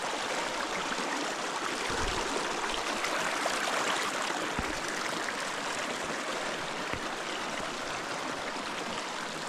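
Mountain stream rushing steadily over stones as it is crossed on foot.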